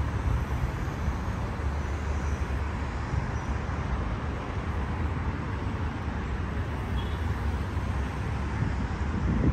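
Steady traffic noise from a busy multi-lane road: a continuous low rumble of passing cars with tyre noise.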